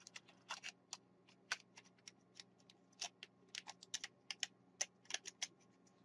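Light, irregular plastic clicks and taps from the opened plastic housing of an A4tech X7 gaming mouse as it is handled and put back together.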